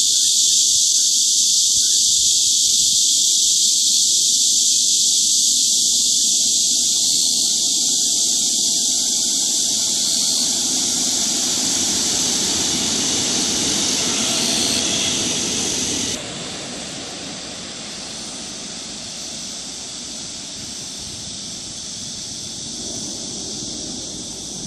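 A loud, steady high drone of cicadas, with an electric metro train rumbling across a concrete viaduct, building from about a quarter of the way in and loudest about halfway through. About two-thirds of the way through the sound drops abruptly to a quieter low rumble under a fainter insect drone.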